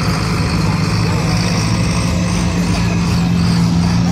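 Pulling tractor's diesel engine running hard at the start of a pull, a steady low drone that grows louder over the last second or two.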